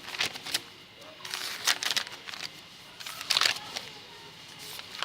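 Paper rustling as notebook pages are handled and turned, in three short bursts.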